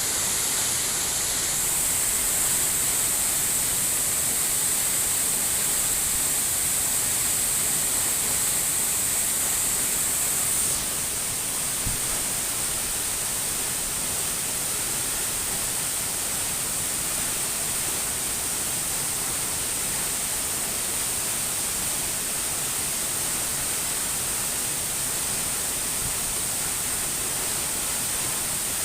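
Waterfall rushing: a steady, dense hiss of falling water that drops a little in level about eleven seconds in.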